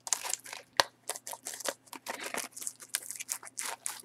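Plastic shrink-wrap on a sealed box of trading cards crinkling and crackling in quick irregular bursts as the box is handled and turned.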